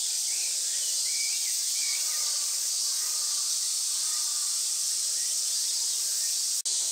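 Steady high-pitched hiss of an insect chorus outdoors, with faint short bird chirps now and then.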